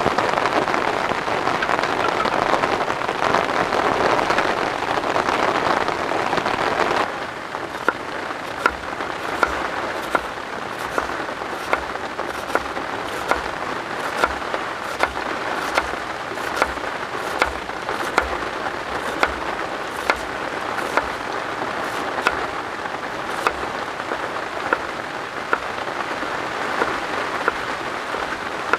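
Steady heavy rain falling. About seven seconds in the rain noise drops a little, and a knife starts chopping on a cutting board in a steady rhythm of sharp taps, a little under two a second.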